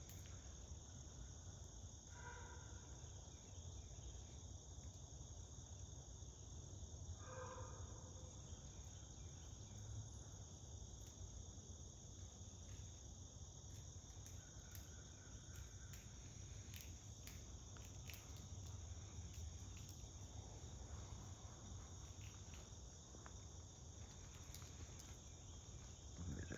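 Faint, steady outdoor insect chorus, a continuous high shrill, over a low background rumble. Two brief pitched calls stand out, about two seconds and seven seconds in.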